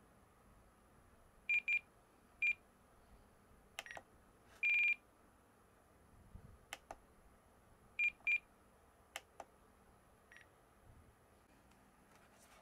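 Spektrum 10-channel DSMX radio-control transmitter beeping as its menu is scrolled and selected. Short high beeps come singly and in quick pairs, one is held a little longer, and soft clicks fall between them.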